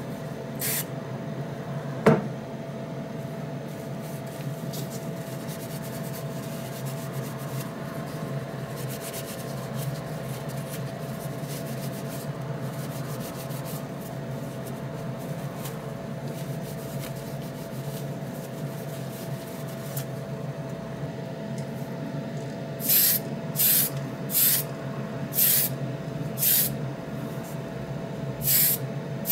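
Spray booth extraction fan running with a steady hum. Near the end come about six short hissing spray bursts, a little under a second apart, aimed at a small diecast car body.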